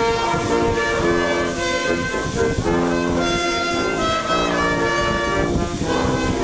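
Band music: held chords that change every second or so.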